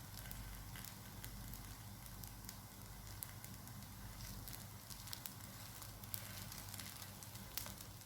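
Stuffed crepe parcels shallow-frying in a little vegetable ghee in a pan: a faint, steady sizzle with many scattered crackles and pops as they brown.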